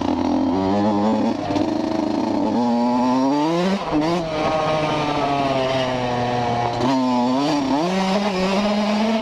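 Small motorcycle engine running under way, its pitch climbing as it accelerates, dropping back sharply about four seconds in as if shifting up, then holding steady with a brief dip and rise again near the end.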